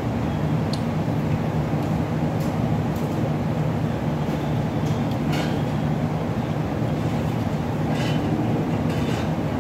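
A steady low mechanical hum with an even rushing noise over it, with a few short faint clicks about halfway through and near the end.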